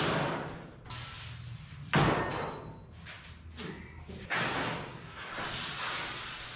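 A long length of metal stock being lifted off a wall rack and handled, with a loud knock about two seconds in, then more knocks and a stretch of scraping and rattling.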